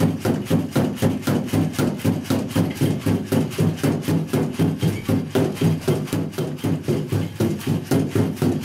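MIT Cheetah 3 quadruped robot's feet striking a treadmill belt in a quick, even rhythm of about five or six steps a second, over a steady low hum.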